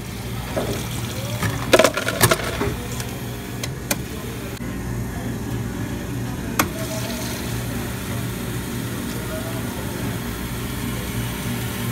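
Soda fountain dispensing soft drink into a paper cup: a steady pouring rush. There are several sharp clacks about two seconds in and a couple more later.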